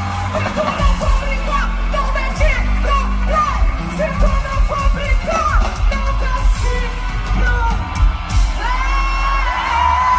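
Live pop concert music played loud over a festival sound system, with a strong bass and singing, and voices in the crowd yelling along.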